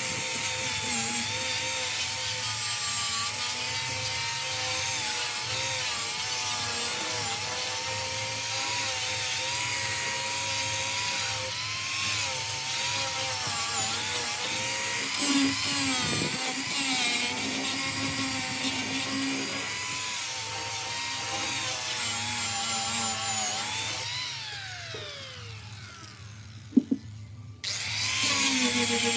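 Electric power tool working wood, its motor tone wavering as it takes load. Near the end it is switched off and winds down with a falling whine, then a click, then it starts up again.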